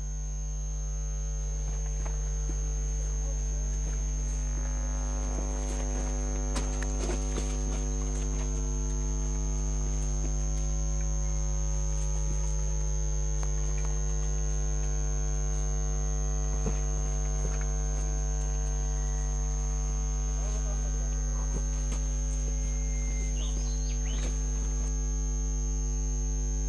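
Steady electrical mains hum: a constant low buzz with a stack of even overtones, and a thin steady high-pitched whine above it.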